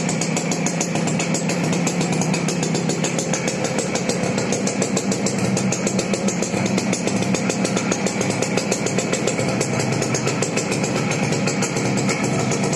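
Suzuki engine of a homemade sanedo mini tractor running steadily, with an even, fast beat.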